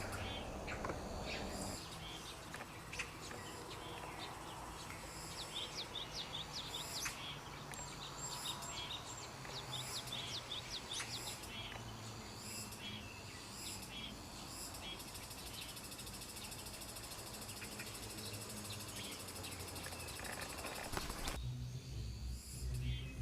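Small birds chirping in short, high calls, thickest through the middle, over a steady outdoor hiss. Near the end it cuts to background music with a low beat.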